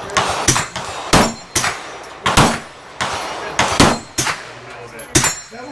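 Gunshots on a shooting range: about nine sharp reports at uneven spacing, some in quick pairs.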